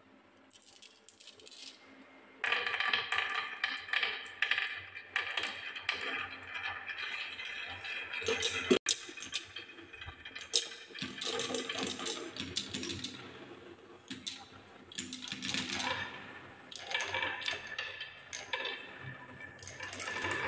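Many glass marbles rolling and clattering around the plywood spiral tracks of a wooden marble run, with a dense stream of clicks and a ringing roll as they hit the wood and each other, starting about two and a half seconds in after a quiet opening.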